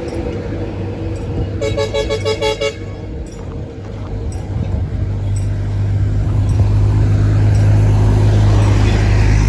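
A vehicle horn sounds a quick run of short toots about two seconds in, over traffic noise. From about five seconds the low rumble of a heavy vehicle's engine builds and grows loud, as a heavy truck comes close.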